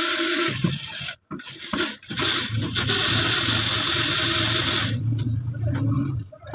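Small electric drive motor and gearbox of a battery-powered children's ride-on motorcycle running with a steady whir, breaking off and restarting a few times about a second in, then stopping shortly before the end.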